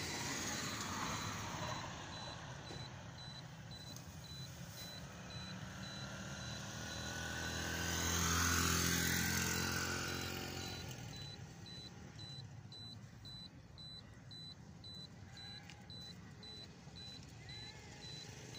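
A road vehicle passes, its rumble swelling to a peak about halfway through and then fading away. A high beep repeats about twice a second throughout.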